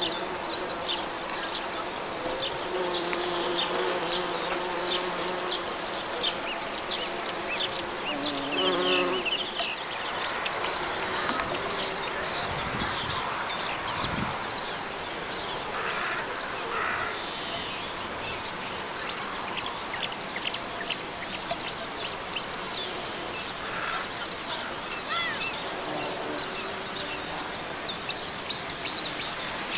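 Bumblebees and honeybees buzzing as they fly among flowers, the hum swelling and fading as each one passes close, with a pitch bend near a third of the way in. Over this runs a steady scatter of short, high chirps.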